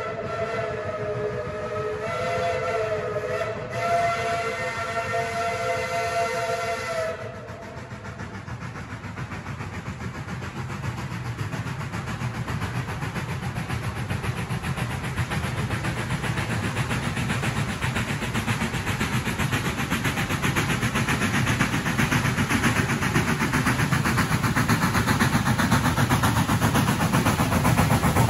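Steam locomotive whistle sounding a long chord-like blast, with a brief dip about two seconds in, cutting off about seven seconds in. Then a steady rushing noise from the train that grows gradually louder.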